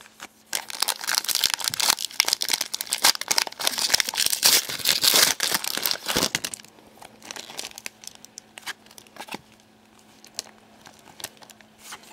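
Plastic foil wrapper of a hockey trading-card pack crinkling and tearing open for about six seconds. After that come lighter scattered clicks as the cards are handled.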